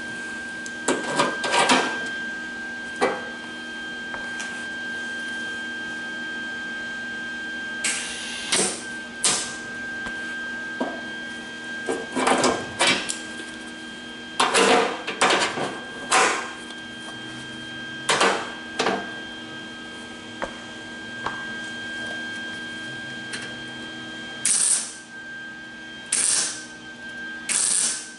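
MIG welder laying short tack welds on a steel car door skin: a string of brief welding bursts, each under a second, with pauses of a few seconds between them, over a steady high hum.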